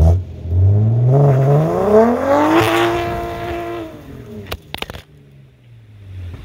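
Exhaust of a big-turbo BMW 440i's B58 turbocharged inline-six: a low running note, then the revs climb steadily for about two seconds, hold briefly and ease off, followed by a few sharp cracks.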